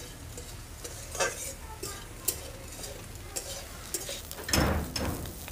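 A flat metal spatula scraping and stirring small dried shrimp in an aluminium wok, with irregular clicks and scrapes of metal on metal and a light sizzle as the shrimp roast. A louder, longer rustle comes about four and a half seconds in.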